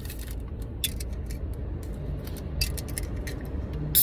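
Light clicks and taps from handling an aluminium soda can, with a sharper click at the very end as a fingernail works the pull tab, over a steady low car-cabin rumble.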